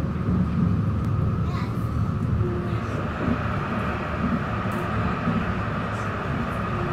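Interior of a moving tram: the steady rumble of wheels on rails and running gear, with a steady high hum from the drive that strengthens a little about halfway through.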